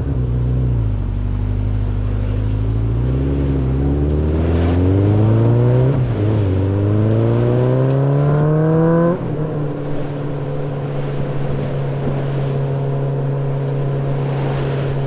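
An engine revving up in two long rising pulls, then dropping suddenly about nine seconds in and running at a steady speed.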